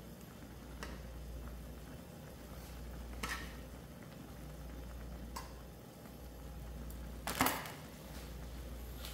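Kitchenware being handled: four short knocks and clinks, the loudest near the end, over a steady low hum.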